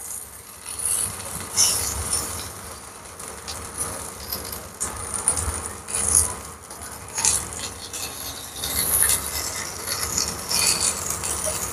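Raw potato slices being laid and nudged into place in an oiled nonstick frying pan on the heat: soft irregular rubbing and scraping against the pan, with light crackling from the oil.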